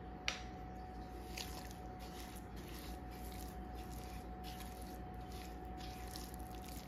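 Silicone spatula mixing ground chicken and spices in a glass bowl: soft squishing, scraping strokes, after one sharp click just after the start. A faint steady hum runs underneath.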